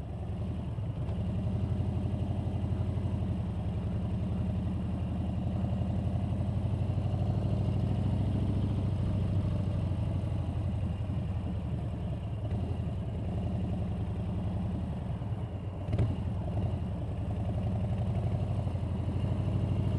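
Motorcycle engine running steadily at low revs in slow traffic. A single sharp click comes about 16 seconds in.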